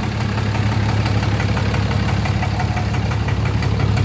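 2013 Ram 2500's 6.7 Cummins turbo-diesel inline-six idling steadily, with a light rhythmic knock ticking through it. A dealer tech took the knock for a possible fuel knock from a hung-up injector.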